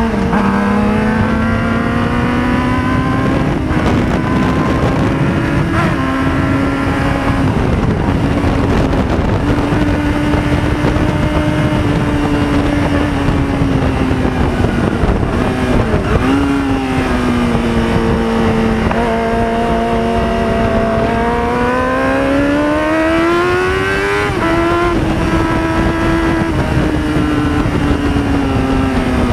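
Yamaha YZF-R6 (2005) inline-four engine, breathing through an aftermarket Roadsitalia silencer with the dB killer removed, at racing speed. The revs climb and fall over and over, with sudden drops in pitch at each gear change and a long rising pull late on, over a steady rush of noise.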